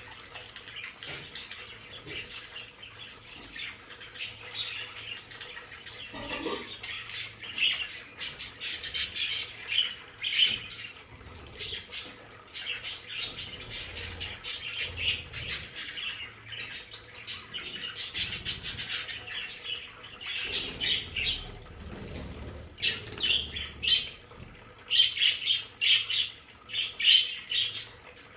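A flock of budgerigars chattering: many short chirps, warbles and squawks overlapping, growing busier about eight seconds in and again near the end.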